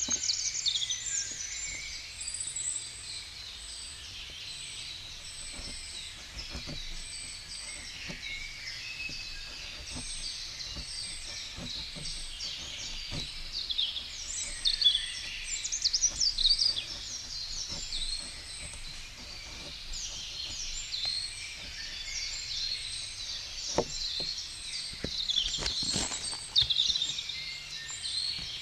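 Woodland birds singing, a dense chorus of overlapping chirps and trills, with scattered faint clicks and a few knocks near the end.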